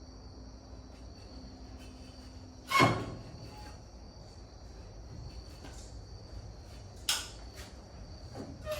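Crickets chirping steadily, with a loud sharp knock about three seconds in, a second one about seven seconds in and a softer one near the end.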